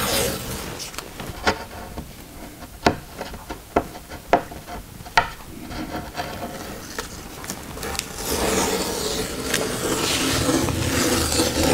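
Self-adhesive anti-slip tape being handled and worked onto a plywood bench top: scattered sharp clicks and taps, then steady rustling and rubbing from about eight seconds in.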